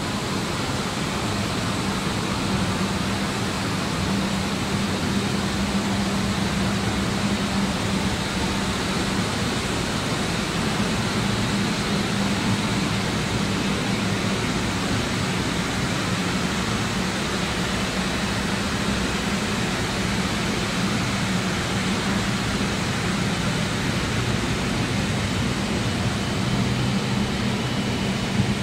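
Steady machinery noise: a low hum over an even hiss, unchanging throughout.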